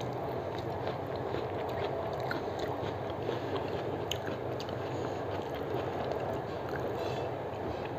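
Chewing with small mouth clicks, and fingers squishing and mixing rice and dal on a steel plate, over a steady background rumble.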